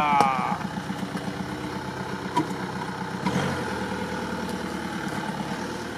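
SEAT car's engine idling with an even, rhythmic pulse as the car creeps back and forth over a flashlight; the engine sound swells slightly about three seconds in.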